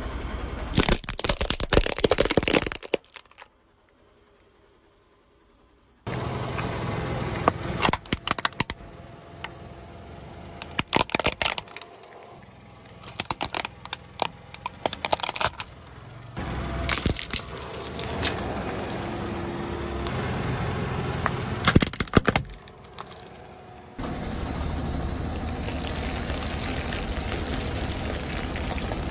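A car tire rolling over small objects and crushing them in a series of sharp cracks and crunches. First a row of plastic glitter tubes cracks, then a plastic toy car's body crunches and snaps. Near the end, balls of aluminium foil are flattened with a steady crinkling hiss.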